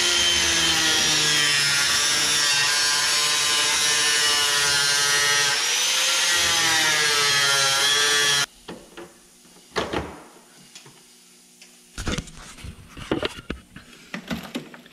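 Small handheld cut-off wheel cutting shallowly through the rusted outer steel skin of a Ford Escape's rear quarter panel. It makes a high, steady whine that sags in pitch as the wheel bites and then recovers. It cuts off suddenly about eight and a half seconds in, followed by a few light knocks and clicks.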